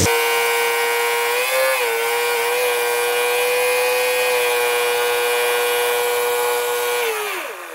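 A small electric motor or power tool whining at a steady high pitch, wavering briefly, then winding down with a falling pitch near the end.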